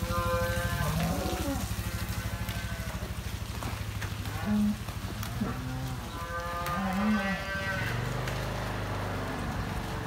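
Dairy cows mooing several times: a call at the start, a short low moo about four and a half seconds in, and a longer, higher one around seven seconds. Underneath runs a steady low mechanical drone that changes about three-quarters of the way through.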